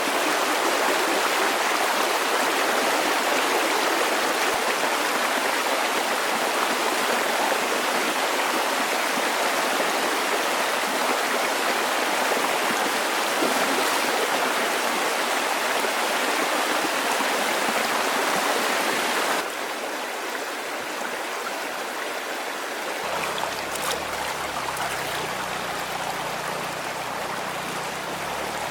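Steady rushing of flowing water. It drops abruptly to a lower level about 19 seconds in, and a low rumble joins about four seconds later.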